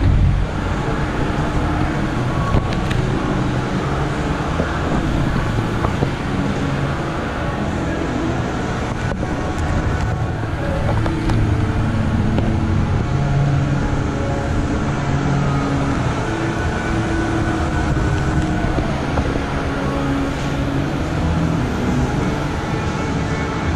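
Steady rushing air in a paint spray booth: the booth's air flow and the spray gun hissing as clear coat goes on, with a low drone underneath.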